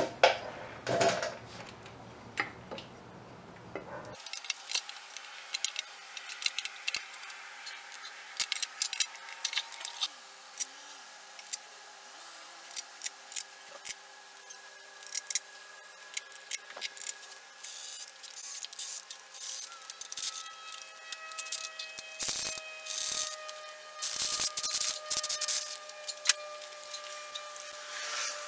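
Hand tools clicking and scraping against metal engine parts: many short clicks and rubbing sounds, busier in the second half, with faint steady tones behind them.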